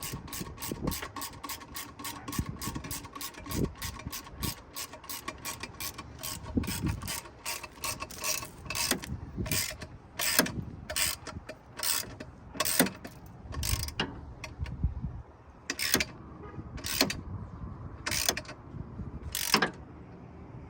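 Ratchet wrench with an 8mm socket clicking as a turbo bolt is turned, a steady run of about four clicks a second that slows to single clicks about a second apart in the second half.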